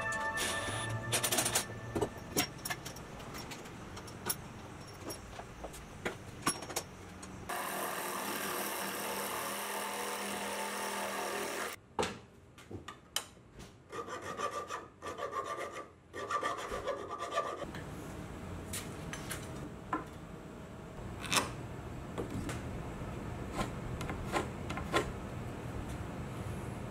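Hand woodworking on pine boards and plywood: wood knocking and rubbing, scattered clicks and taps, and a stretch of a few seconds of steady scraping noise about a third of the way in.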